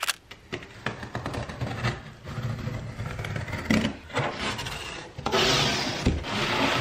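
A box cutter slitting packing tape on a cardboard box, then the cardboard flaps scraping and rubbing as the box is opened. About five seconds in, a louder run of scraping and rustling.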